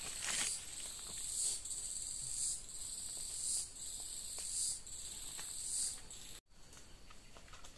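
A chorus of insects shrilling in a high, steady buzz that swells and fades in pulses about once a second. It cuts out abruptly for an instant near the end and comes back much fainter.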